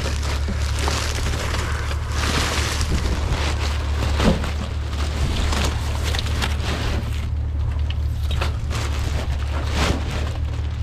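Rummaging through trash bags: irregular rustling, crinkling and small knocks of plastic and debris being handled, over a steady low rumble.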